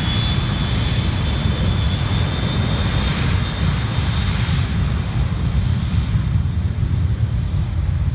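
Boeing E-3A Sentry's four TF33 turbofan engines at taxi power: a high jet whine that fades out about halfway through as the aircraft moves away, over a continuous deep rumble.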